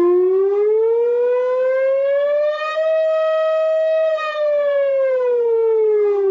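Emergency alert siren tone: one slow wail that rises in pitch for about three seconds, holds briefly at the top, then falls back down.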